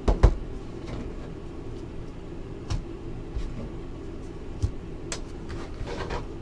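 Trading cards and a cardboard card box handled on a table: a few short knocks and taps, the loudest just after the start, over a steady low hum.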